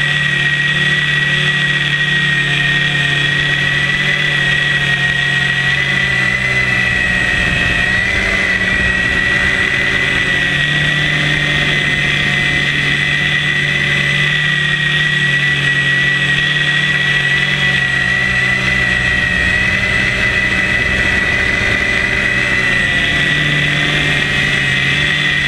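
Hexacopter's six electric motors and propellers running in steady flight, heard from a camera mounted on the airframe: a constant drone with a high whine, wavering briefly about eight seconds in.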